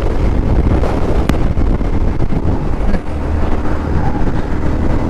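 Wind rushing over the microphone and the Suzuki SV650S's V-twin engine running at motorway speed, in strong gusty crosswinds.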